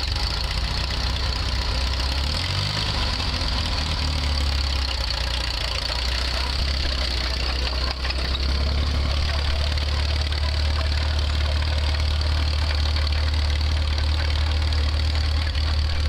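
Engine of a small Oliver crawler tractor running as the crawler drives, with a brief rise in engine speed about two to three seconds in, then a steady, slightly louder note from about halfway.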